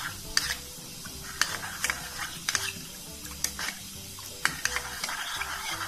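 Metal spoon stirring a cornflour-and-water slurry in a ceramic bowl, clinking and scraping against the bowl about twice a second as the mix is beaten smooth.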